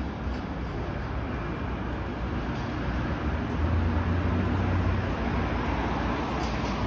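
Road traffic noise on a city street: a steady hum of traffic, with a vehicle's low rumble growing louder about three seconds in.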